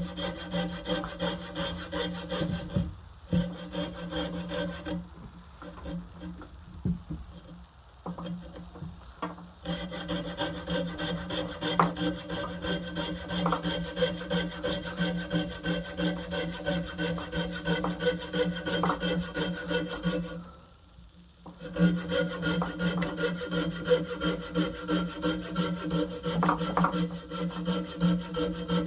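Coping saw cutting through a wooden axe handle right at the steel head, in quick back-and-forth strokes at about two a second, with a steady ringing tone under the rasp of the teeth. The strokes go lighter for a few seconds about five seconds in and stop for about a second about two-thirds of the way through.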